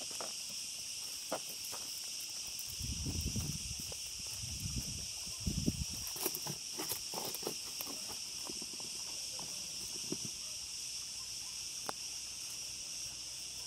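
Steady high-pitched insect chorus, with scattered crunches and knocks from footsteps on gravel and the phone being handled, busiest a few seconds in.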